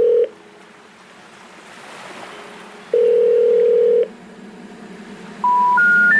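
A steady telephone line tone sounds for about a second, twice, with a faint hiss between. Near the end come three short notes stepping upward, the phone network's special information tone that comes before a recorded 'number not in service' message.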